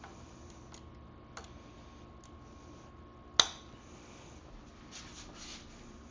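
Metal tools clicking and scraping on a seized brake rod adjuster, with one sharp metallic tap about three and a half seconds in.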